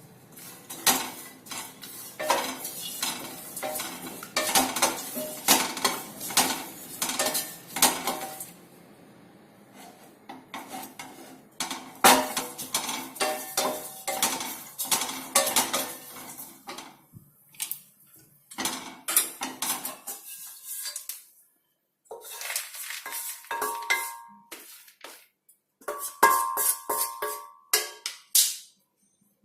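A utensil scraping and clanking against a pan as dried lesser galangal (sitharathai) is stirred while dry-roasting. The strokes come in rapid runs, with two pauses of a few seconds.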